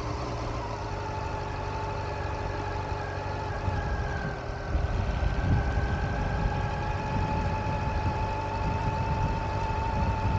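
Honda CB400 Super Four's inline-four engine idling steadily, with a constant low rumble and a faint steady whine.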